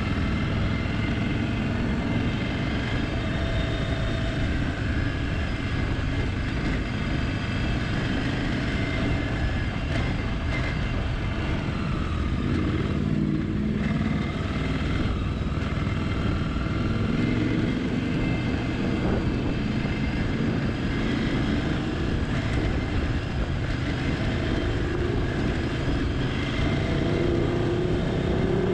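Motorcycle engine running at trail-riding speed on a dirt track, its pitch rising and falling as the throttle opens and closes, over a steady low rush of wind noise.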